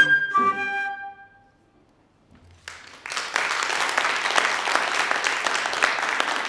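A flute and piano end a piece on a held high note and a chord that fades away. After about a second of silence, an audience breaks into steady applause.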